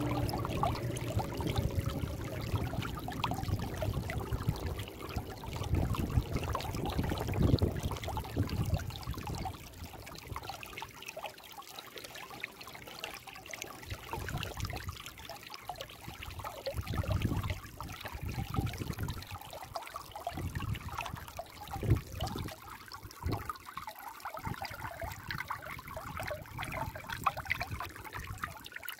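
Shallow stream water running and trickling over rocks and pebbles, an uneven splashing flow that is louder for the first nine seconds or so and then softer with occasional swells.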